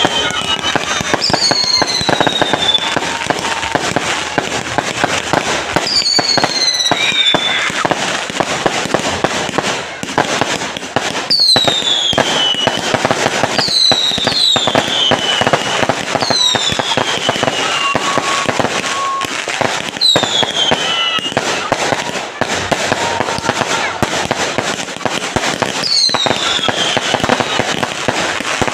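A fireworks display: dense, continuous crackling and popping from bursting shells. Falling whistles cut through every few seconds.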